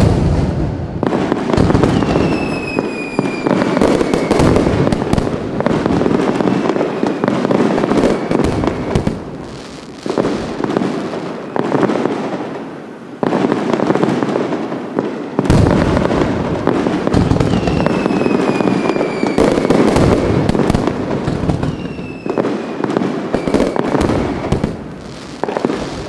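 Fireworks display: dense, rapid crackling and popping bangs with low booms underneath. Whistling rockets fall slightly in pitch about two seconds in and again around seventeen and twenty-two seconds in. The sound starts abruptly and fades out near the end.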